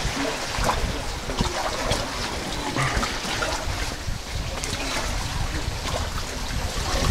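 Water trickling and dripping inside a sea cave, with scattered small drips and splashes over a low rumble.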